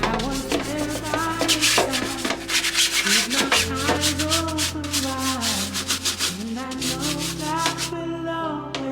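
Background pop music: a sliding vocal melody over held bass notes that change twice. A dense, scratchy rubbing texture runs alongside and drops out near the end.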